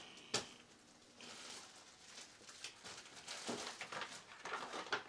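Handling noise from unpacking small items: a sharp click about a third of a second in, then scattered light rustles and taps that grow busier towards the end.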